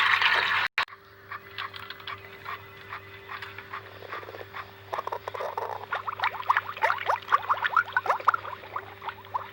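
Brief loud noise cut off abruptly under a second in, then a stomach growling: a long irregular run of short gurgles that grows busier and louder from about five seconds in.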